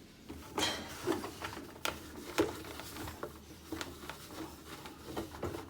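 A baby wipe rubbed and scrubbed over the inside of a washing machine: irregular wiping and scraping with a few sharp clicks in the first half.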